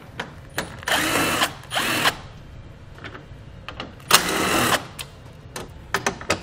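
A cordless drill-driver with a 10 mm socket, backing out the bolts across the top of a car's front fascia. It runs three times in short bursts: about a second in, just before two seconds, and just after four seconds. Each burst is a motor whine that rises and falls in pitch, with light clicks between the bursts.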